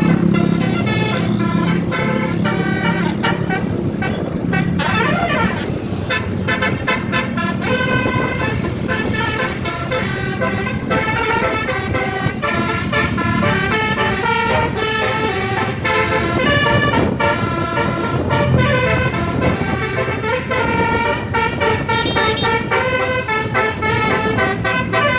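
A tour bus's telolet horn playing quick melodic tunes, its tooting notes stepping up and down in pitch again and again, over the bus's engine and road noise.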